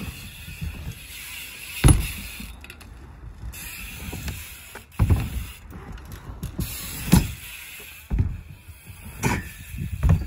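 BMX bike riding a wooden ramp track: the rear hub's freewheel ratchet ticking over a rolling rumble, broken by several heavy thumps of the bike landing on the wooden ramps, the loudest about two seconds in and near seven seconds.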